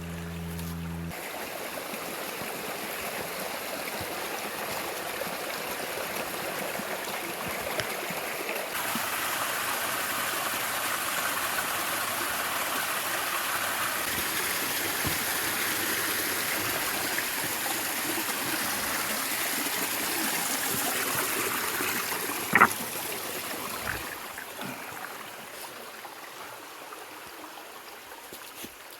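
Mountain creek rushing over rocks, a steady noise of running water that grows louder and then fades near the end. A low hum cuts off about a second in, and a single sharp click sounds a few seconds before the end.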